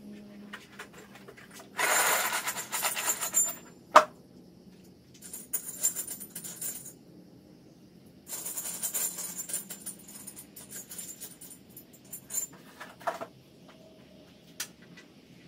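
Loose small metal parts jingling and clinking as they are shaken and rummaged through, in three bursts, with one sharp clink about four seconds in and a few lighter clicks near the end.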